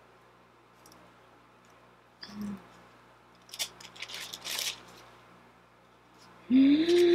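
Quiet room with a few brief crisp rustles in the middle. Near the end comes a loud, drawn-out, wordless vocal sound from a woman in excitement, about a second long, its pitch rising then falling.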